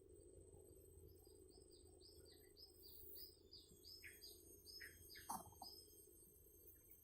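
Faint bird calls: a rapid series of short, high, down-slurred chirps, about three a second, with a few lower down-slurred notes mixed in near the end.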